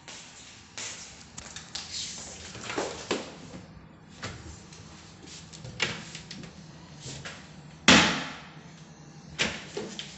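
Wardrobe doors being opened and handled: a series of knocks and clunks, the loudest a single bang about eight seconds in.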